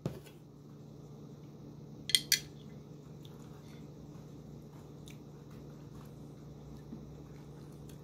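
Two quick clinks of a metal spoon about two seconds in, over a steady low hum.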